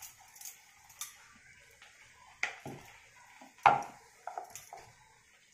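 Scattered knocks and clatters of kitchen utensils, the loudest a little past halfway, as a rolling pin works puri dough on a stone rolling board.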